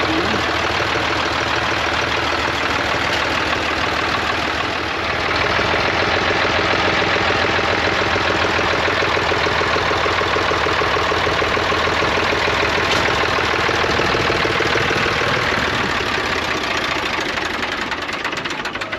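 Zetor 3011 tractor's diesel engine running steadily, with a short dip about five seconds in, then easing off near the end.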